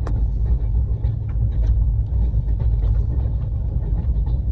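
Steady low rumble of an express train running at speed, heard from inside its closed air-conditioned coach, with scattered faint clicks of the wheels over the track.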